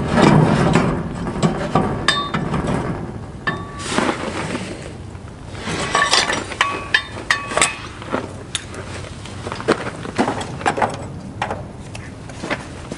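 Handling noises as a green plastic chick lift bracket is fitted against the corrugated metal sheeting of a chicken tractor, with gravel shifting underfoot. The sound is a string of clinks and knocks, several with a short metallic ring.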